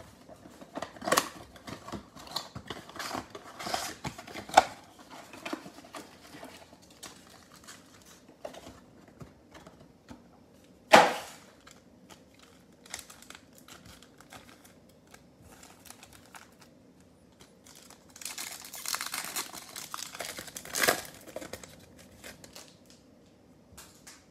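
Foil trading-card packs of 2020 Panini Select football crinkling as they are handled and torn open, in uneven clusters of rustling with scattered small taps. One loud sharp click comes about eleven seconds in.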